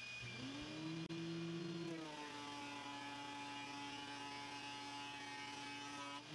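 Thickness planer's electric motor running with a steady hum. It rises to speed just after the start, and about two seconds in its pitch drops slightly and the tone grows fuller, as when a board feeds through under load.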